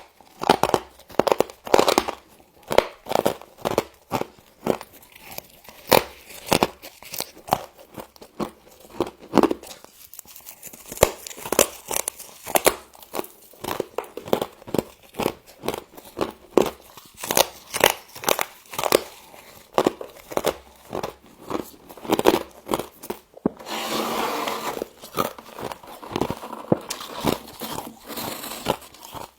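Frost being bitten and chewed close to the microphone: crisp, rapid crunches, several each second, which merge into a denser, steadier crunching for a few seconds near the end.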